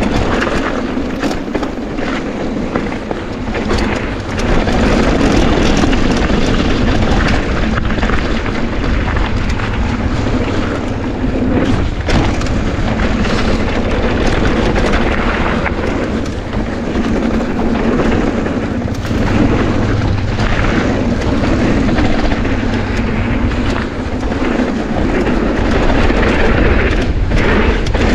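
Mountain bike riding downhill on a dirt trail: steady wind rumble on the microphone and tyre noise, with frequent clicks and clunks as the bike rattles over bumps.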